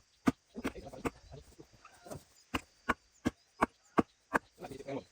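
Axe chopping into a dry log: quick, sharp strikes at about three a second, with a short pause before the run resumes near the middle.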